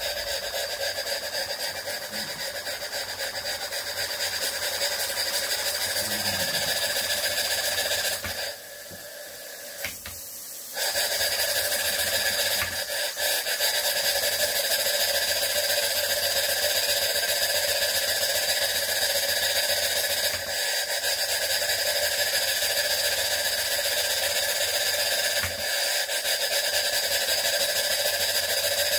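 Modified Jensen 20G model steam engine running steadily off a copper boiler, an even continuous sound with no separate beats. It drops away for about two seconds near nine seconds in, then picks up again.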